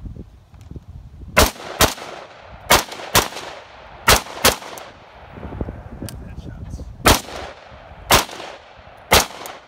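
AR-15-style rifle firing nine shots: three quick pairs about half a second apart, then three single shots about a second apart, each crack trailing off briefly.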